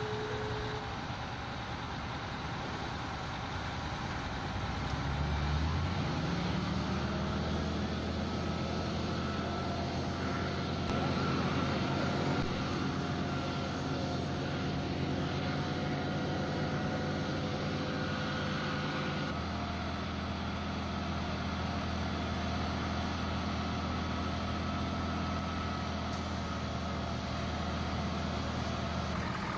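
Fire engine's engine revving up about five seconds in, then held running steadily at raised speed, as it does when driving the pump that feeds the hose line. Its note shifts slightly about nineteen seconds in.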